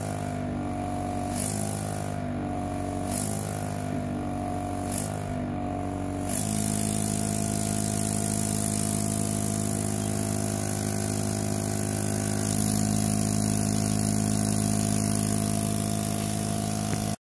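Background music of sustained synth chords. For the first six seconds the chords change about once a second with a light regular swish; after that a single dense chord is held.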